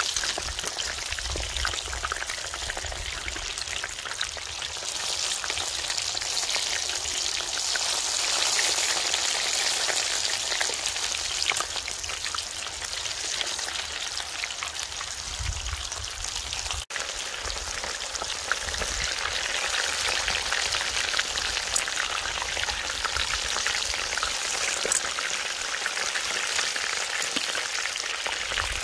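Battered shrimp deep-frying in hot oil in a cast-iron cauldron: a steady, dense crackling sizzle, dropping out for an instant about seventeen seconds in.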